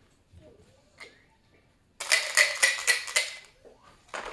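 Dice rattling inside a plastic dice cup, shaken hard in about four quick strokes a second for a second and a half. Near the end they are tipped out with a single clatter into a cardboard box lid.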